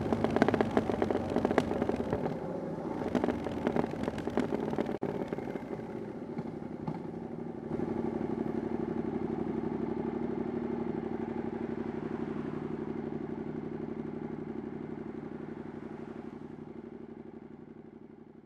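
Triumph Bonneville Scrambler 900's 900cc parallel-twin engine with an aftermarket 'VW pipes' exhaust. It runs with many sharp crackles over the first five seconds, then settles into a steady, even running sound about eight seconds in that slowly fades out.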